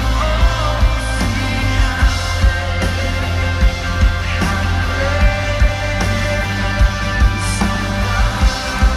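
Full live rock band playing a worship song, heard in an arena: drums, electric guitars and keyboards, with a sung lead melody over them.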